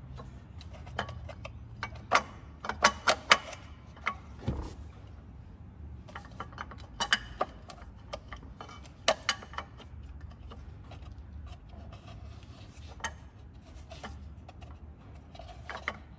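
Scattered metallic clicks and knocks from the drive-belt tensioner of a Holden Cruze 1.8 F18D4 engine being wiggled loose by hand after its centre bolt is removed, with the loudest cluster about two to three and a half seconds in. A steady low hum runs underneath.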